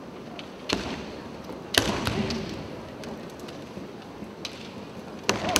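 Kendo bout: three sharp cracks of bamboo shinai strikes and foot-stamps on a wooden floor, about a second in, near two seconds and near the end, ringing in a large hall. A brief shout follows the second crack.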